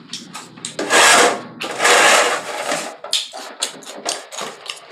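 Close-miked chewing of crunchy tortilla chips: two long, loud crunching bursts, then a run of smaller crunches and wet mouth clicks.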